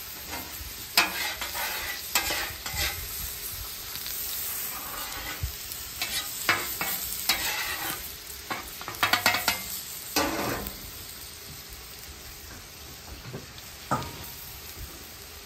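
Butter and oil sizzling on a hot steel flat-top griddle, with a metal spatula scraping over the steel again and again to spread them. Near the end a breaded fish fillet goes down into the fat with a brief louder sizzle.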